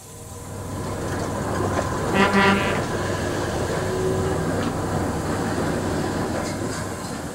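Goods train passing close by, a steady rumble and rattle of wagons that builds at the start and eases near the end. A train whistle gives a short double toot about two seconds in.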